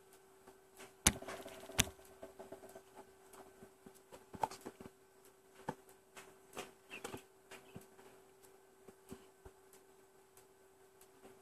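A cardboard lamp box being handled: two sharp clicks about a second in, then scattered light taps and rustles. A faint steady hum runs underneath.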